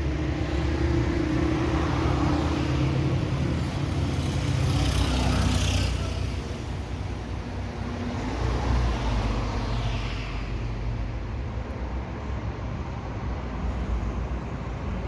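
Steady low rumble, with two swells of hissing noise that rise and fade about five and ten seconds in.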